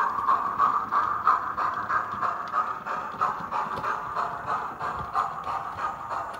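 Model steam locomotive's DCC sound decoder playing steady exhaust chuffs, about three beats a second, over a hiss of steam, growing fainter as the locomotive runs away.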